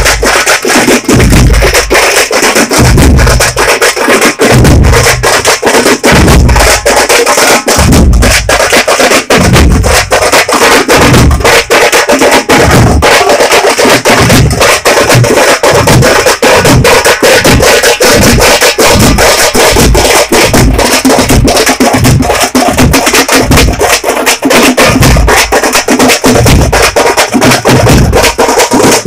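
Ensemble of tamate frame drums beaten rapidly with sticks, over large bass drums pounding a steady beat at about two a second. Very loud.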